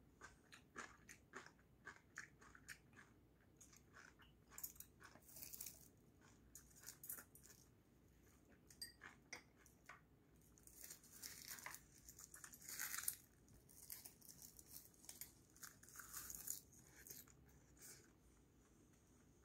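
Faint close-up eating sounds: chewing and smacking, with small chopstick clicks. The short clicks come thicker around the middle and die away near the end.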